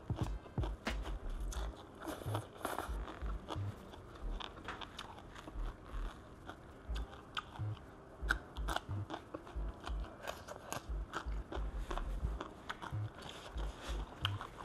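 Close-miked eating sounds: crunchy bites and wet chewing of spicy papaya salad with rice noodles, a steady run of small crisp clicks and crunches.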